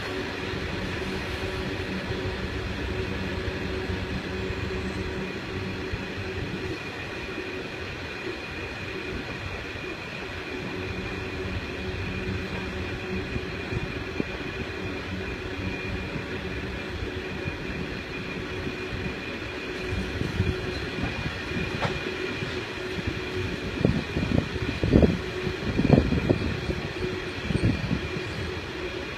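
Loaded iron ore train wagons rolling past on steel rails: a steady rumble with a thin, steady high whine over it, and a run of louder clunks from the wagons late in the stretch.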